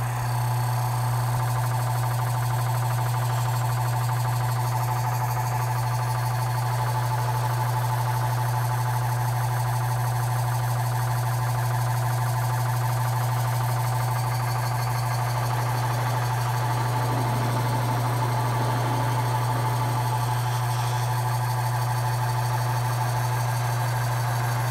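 Taig mini lathe running at a steady speed: its motor and belt-driven 5C spindle give a constant low hum with a steady higher whine above it, while the cutting tool is fed slowly into the spinning workpiece.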